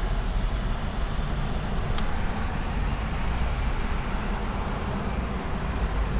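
Steady low rumble of a car creeping through a traffic jam, heard from inside the cabin, with a single sharp click about two seconds in.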